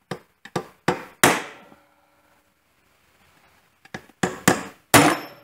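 Hammer blows on a steel punch, driving a torch-heated pin seized by rust in its sleeve out of a tractor's parking brake ratchet assembly. The pin is still not giving. A handful of metallic strikes, some ringing briefly, then a pause of about two seconds and another quick run of strikes near the end.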